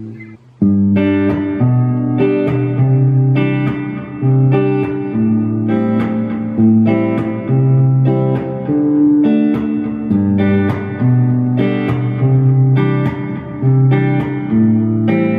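Clean electric guitar through a Fender Champion 20 combo amp. A held chord dies away at the very start, and after a short gap picked chords are played in an even rhythm, about two a second.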